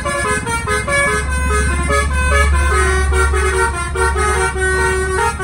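Telolet bus horn playing a fast tune of short notes that step up and down in pitch, driven by a horn melody module. It plays over the deep rumble of the bus engine.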